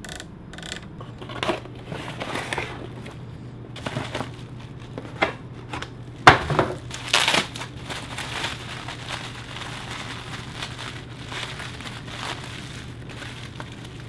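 Bubble wrap crinkling and crunching in the hands as a replacement circuit board is unwrapped, in irregular bursts with the loudest crunches about six and seven seconds in, over a steady low hum.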